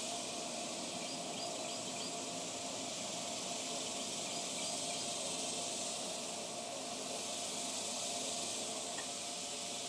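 Steady outdoor background hiss with a faint steady hum, and a few faint high chirps about a second in.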